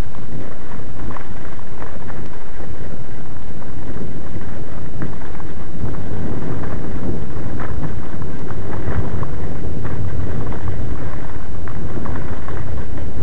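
Heavy wind buffeting on the microphone with constant crackling and knocking from a camera jolting along a rough dirt track on a moving mountain bike.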